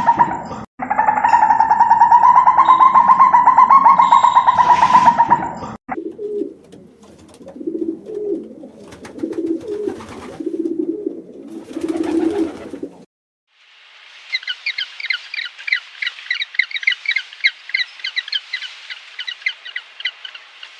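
A loud, steady, wavering drone for about the first six seconds, then a dove's low cooing repeated about once a second, then, after a short break, rapid high twittering of small birds.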